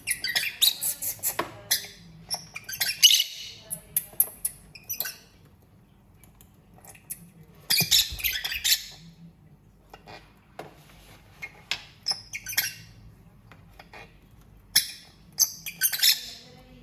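Lovebirds chirping and squawking in clusters of rapid, high-pitched chirps, with quieter spells between the loudest bursts.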